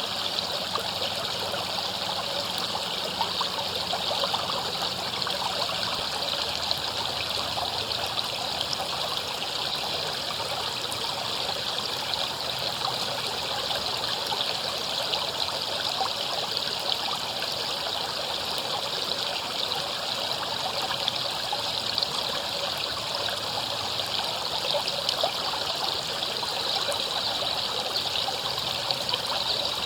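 River water flowing steadily over rocks: an even, unbroken rush with small splashes and trickles.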